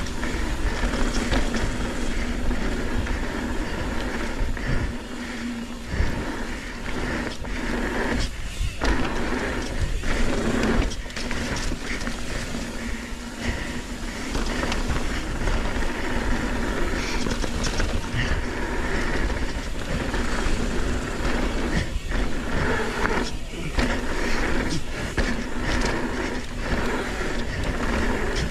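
Mountain bike descending a dirt trail at speed: a continuous rumble of tyres and wind on the camera microphone, with frequent short knocks and rattles as the bike goes over bumps.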